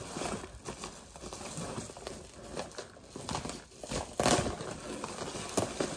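Wrapping paper and cardboard rustling and crinkling as wrapped gifts are handled and lifted out of a cardboard shipping box, with a louder rustle a little after four seconds in.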